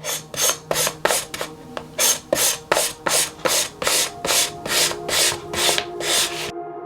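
Yanagiba sushi knife blade stroked back and forth on a whetstone: a quick, even run of gritty scraping strokes, about two and a half a second, that stops shortly before the end.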